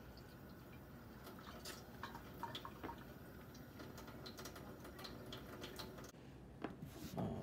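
Tap water running into a stainless-steel sink while hands are rubbed and washed under it, with scattered small splashes and drips; faint and steady. It changes abruptly about six seconds in, followed by a few louder knocks.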